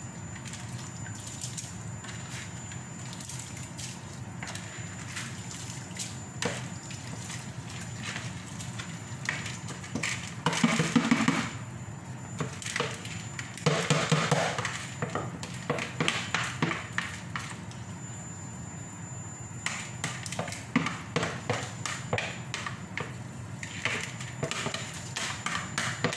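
A wooden spatula scrapes and taps against a plastic tub as soaked basmati rice is knocked into a pan of boiling water, with splashes and bubbling. Short knocks run throughout, the scraping and splashing are loudest about ten and fourteen seconds in, and a steady low hum sits underneath.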